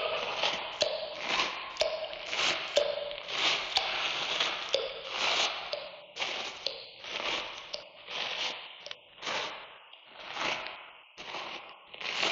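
A rhythmic series of short, noisy scraping or swishing strokes, about two a second, from a sound-effects record.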